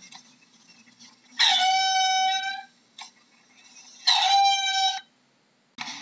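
A mongoose calling twice: each a single high call held at one steady pitch for about a second, with quiet gaps between.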